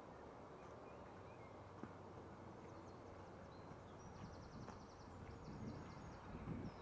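Near silence: faint steady outdoor background hum, with a bird's brief high trill about four seconds in and a few soft low thumps near the end.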